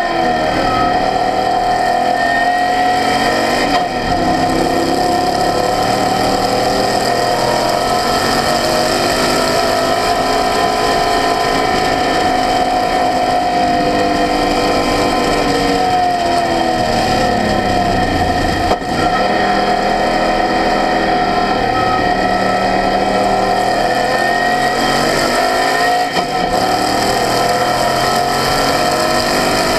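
Apexocet race car's engine heard from the open cockpit at speed on track, the revs repeatedly falling and climbing through corners and straights, with brief breaks in the sound about 4, 19 and 26 seconds in.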